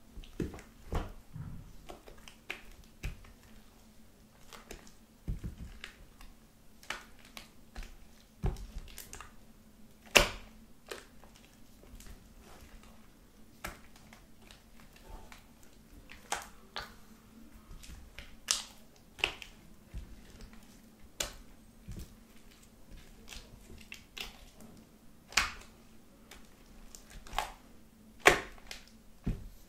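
Thick, sticky lotion slime being stirred and folded with a spatula in a glass dish: irregular wet clicks and squelches, the loudest about ten seconds in and near the end, over a faint steady hum.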